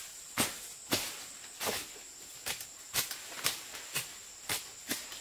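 Machete chopping and slashing through undergrowth, about nine short swishing cuts at roughly two a second. A thin, steady, high insect drone runs underneath.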